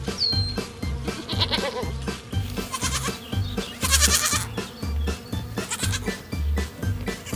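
Background music with a steady beat, with a farm animal bleating about four times over it, the loudest call about four seconds in.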